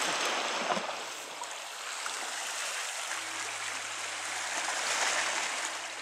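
Small sea waves lapping over a pebble shore, a soft wash of water that swells at the start and again near the end.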